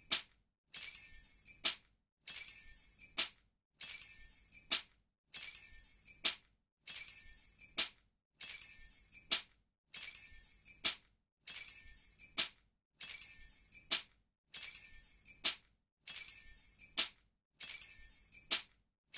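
A bunch of metal keys jingling for about a second and ending on one sharp clink, repeated about every second and a half as the same clip loops.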